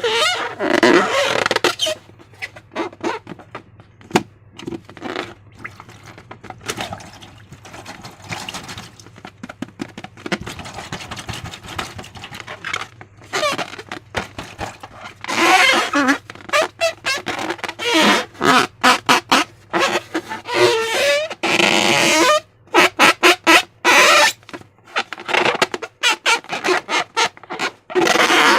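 Slime being squeezed and worked by hand: wet squelches and fast crackling pops as air pockets are pressed out, with louder, denser squishing in the middle and near the end.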